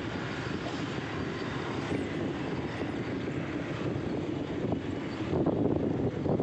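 Steady outdoor noise of wind on the microphone over a dull rumble like distant traffic. About five seconds in it grows louder and rougher.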